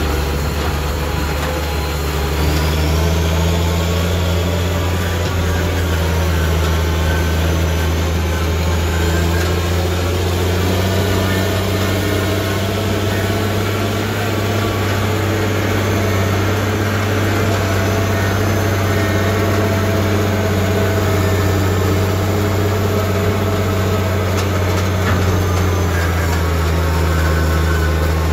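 Caterpillar 320CL excavator's Cat 3306 six-cylinder diesel running steadily with a deep, even engine note, a little stronger from about two seconds in.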